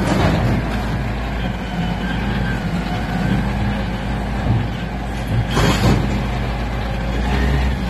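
Kalmar reach stacker's diesel engine running steadily while the spreader is worked onto a container, with a short hiss about five and a half seconds in.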